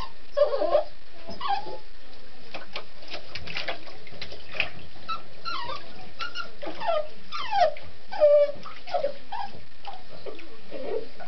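Lhasa Apso whimpering and yipping in a long string of short, high cries, many of them falling in pitch, over a steady hiss.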